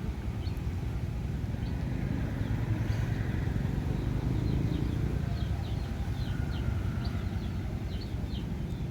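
A steady low rumble, swelling slightly in the middle, under many short, high chirps from small birds.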